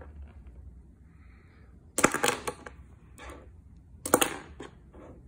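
Plastic Bakugan toy figures clicking and clattering as they are handled and set down on a game mat, in two short bursts of clicks about two seconds apart.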